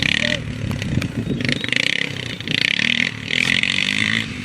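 Quad (ATV) engine running and being throttled up in short bursts, about four times.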